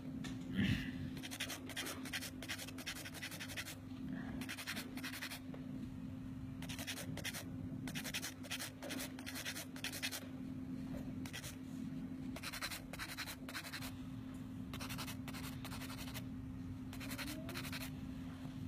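Nail being filed by hand: about a dozen short bursts of rapid scratching strokes, each about half a second long, as an artificial nail tip is shaped.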